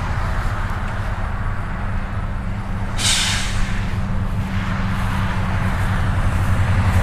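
Steady low drone of a motor vehicle and road noise, with one short, sharp hiss about three seconds in.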